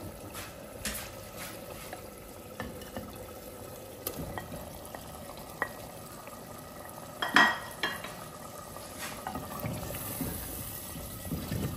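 Wooden spoon stirring in a clay handi of simmering beef keema as cut potatoes are added and mixed in, over a low steady sizzle. Scattered light clicks and knocks, the loudest about seven and a half seconds in.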